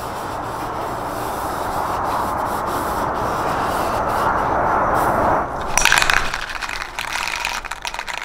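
A tack cloth wiped over a scuffed side-mirror cover, a steady rubbing hiss that grows slightly louder for about five seconds. Then, from about six seconds in, a rattle can of spray paint is shaken, its mixing ball clattering rapidly.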